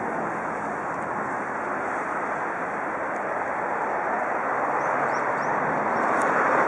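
Steady, even rush of outdoor traffic noise with no distinct events.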